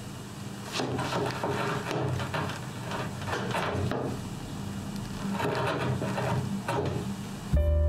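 Small pointed metal tool scratching along the edge of an elm board in about six short strokes, scoring the marked lines into the wood. Music comes in loudly near the end.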